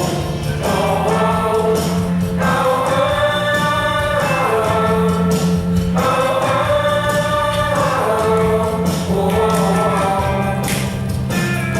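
Music: a song with long held, wordless choir-like vocals moving slowly between notes over a steady low bass.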